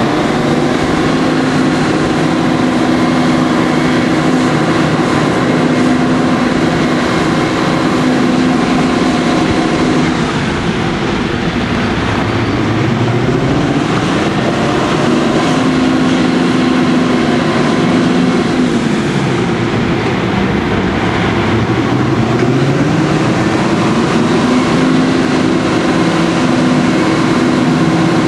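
Class 55 Deltic locomotive's two Napier Deltic two-stroke engines working hard, the revs dropping away and building back up three times as power is eased off and reapplied, typical of a locomotive struggling for grip on wet rails while climbing a bank. Steady rumble of the train running underneath.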